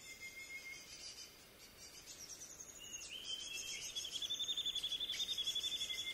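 Outdoor wildlife calls: high-pitched chirping, then a fast pulsing trill that starts about three seconds in and grows louder.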